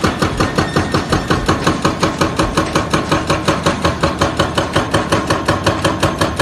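A fast, steady run of sharp knocks, about seven a second, over a steady tone.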